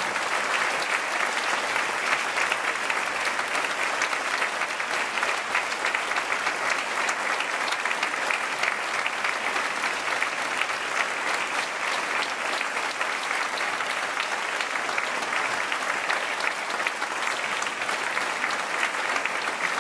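A large audience applauding steadily, dense clapping with no break.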